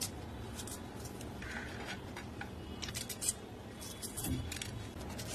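Kitchen knife slitting fresh green chillies lengthwise, heard as a scattering of faint, short crisp clicks as the blade cuts through the pods.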